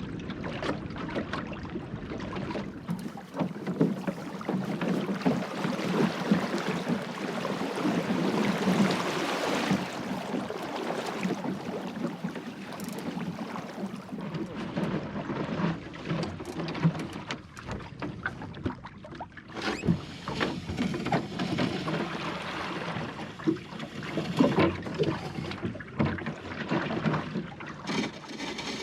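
Water splashing and sloshing around a small sailing skiff being brought into shallow water, with scattered knocks and bumps from the hull and gear.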